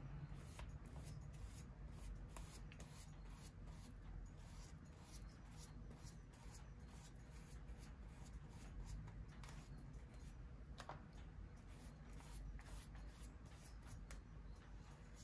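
Faint paper handling: soft rustles, rubs and scattered small ticks as cut paper-napkin pieces are handled and pressed onto a journal page, over a low steady hum.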